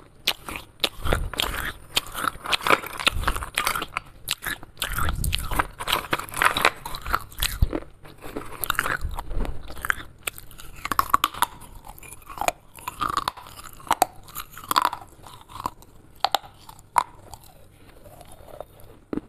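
Biting and chewing of broken clay shards: hard crunches and crackles, dense with heavy bites in the first half, thinning to scattered sharp clicks in the second half.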